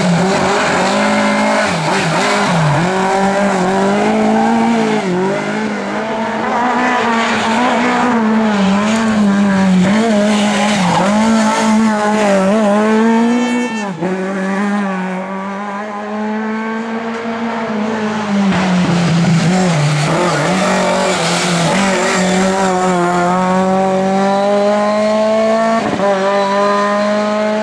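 Lada race car engines running hard at high revs, the pitch dipping and climbing with throttle and gear changes, with tyres squealing through corners. About halfway through the sound breaks off abruptly, and near the end the revs climb steadily as a car accelerates.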